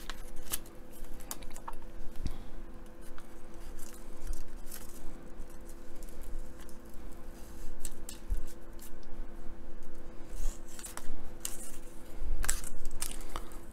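Snap-off craft knife blade cutting and scoring along the edge of a thin wooden decking sheet on a cutting mat: a run of short, irregular scratchy strokes and clicks, a few louder ones near the end.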